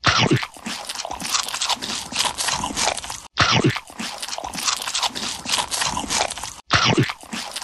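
Close, loud crunching and chewing, as of crunchy food being bitten and eaten, used as a sound effect. A clip of about three seconds repeats, with a short break each time it starts over.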